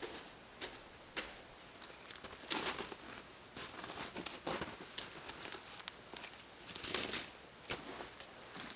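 Footsteps of a person and a dog crunching through crusted, re-frozen snow, with twigs and branches crackling as they push through deadfall. Irregular crunches come thick in the middle, with one sharp, louder crack about seven seconds in.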